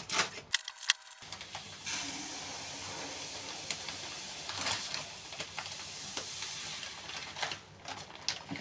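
Fine bulgur pouring from a plastic bag into a plastic storage canister: a steady hiss of running grains for about five seconds. A few crinkles and clicks of the plastic packet come before and after it.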